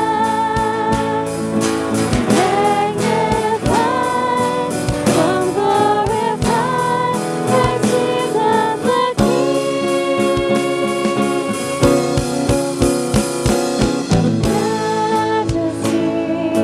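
Worship music: voices singing a slow praise song over instrumental accompaniment with a steady, regular beat.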